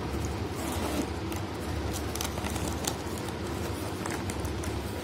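Clear vinyl toy bag being handled and opened by hand: plastic rustling and crinkling with a few small clicks.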